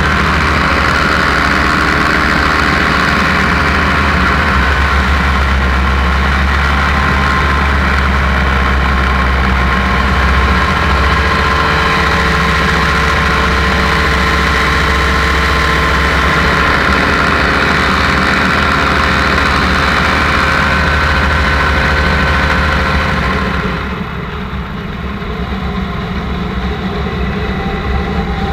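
Paramotor engine and propeller running steadily at flying power. About 24 seconds in the engine is throttled back, and the sound drops and turns duller as the paramotor descends.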